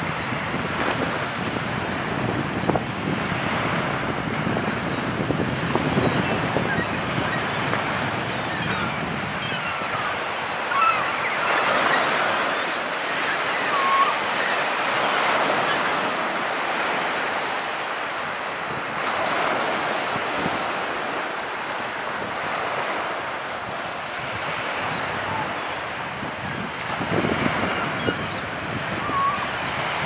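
Sea water splashing and wind on the microphone as a flock of gulls and sea lions feed at the surface on spawning herring, with short gull calls now and then, a few louder about halfway through.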